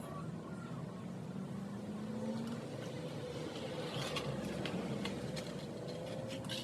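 A motor vehicle engine running at a low, steady pitch that drifts slowly, with a few light clicks about four seconds in.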